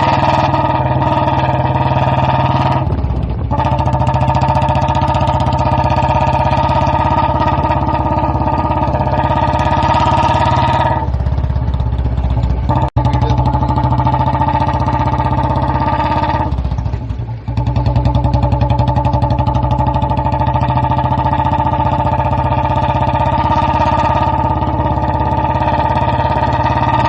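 Royal Enfield Bullet 350's single-cylinder engine running steadily as the motorcycle is ridden. The sound dips briefly about three, eleven and seventeen seconds in.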